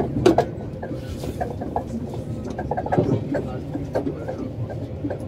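Inside a moving RER commuter train: a steady low rumble with irregular rattles and knocks from the wheels on the rails and the carriage.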